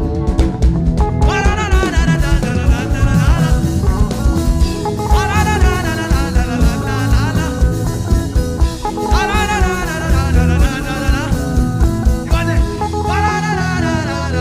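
Live gospel worship band music with a steady beat and bass line, melodic lead phrases coming in about every four seconds.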